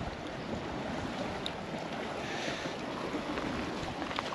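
Steady wind noise: an even rushing hiss with no distinct events.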